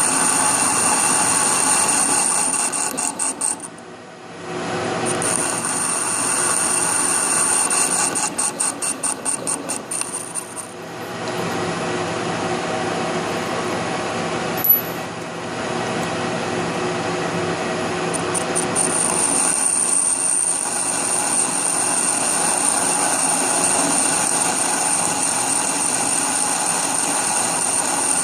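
Lathe running with a steady high whine while machining a truck lug nut. The sound drops away briefly about four seconds in, flutters rapidly for a few seconds before dipping again near the ten-second mark, and there is one sharp click near fifteen seconds.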